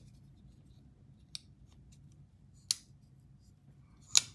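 Button-lock folding knife being flicked, its blade snapping open and shut with sharp metallic clicks. There are three: a faint one, a clearer one, and the loudest near the end.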